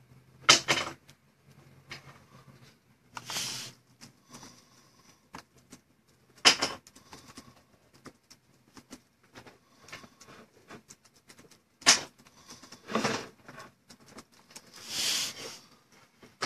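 Scattered clicks, taps and light rustles, broken by about six louder short scrapes or rustles, the sort of handling noise made by someone moving things about at a table.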